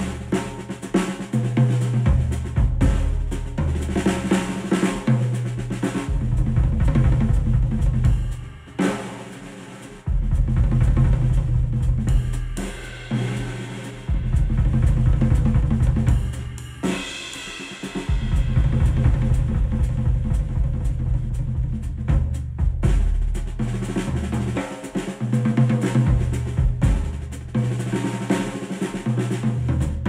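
A drum-led music track played back over hi-fi loudspeakers: kick drum, snare, hi-hat and cymbals over a deep low end. It drops briefly quieter about nine seconds in.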